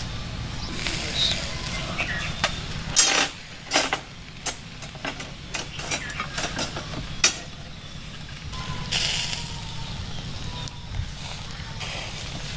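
Chicken grilling on skewers over a charcoal fire: scattered sharp crackles and pops, the loudest about three seconds in, with short bursts of hiss, over a steady low background rumble.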